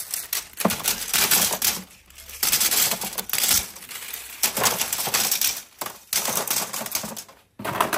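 Loose scrap circuit boards clattering against each other and their tubs as they are handled and tipped about, in several bursts of rapid rattling with short pauses between.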